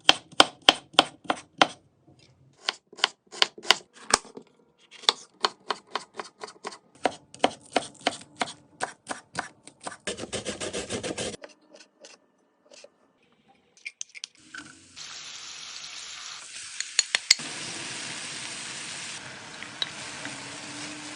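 A knife chopping on a cutting board in quick, even strokes, about four to five a second, for the first half. From about 15 s in, a steady hiss with a few scattered clicks takes over.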